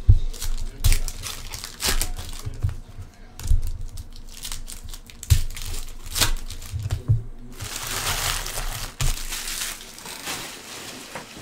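A trading-card pack wrapper being handled, crinkled and torn open, with short crackles and low bumps. About seven and a half seconds in comes a longer, denser stretch of crinkling lasting a couple of seconds.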